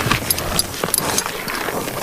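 Horse's hooves clopping: a quick, irregular run of sharp knocks and clicks.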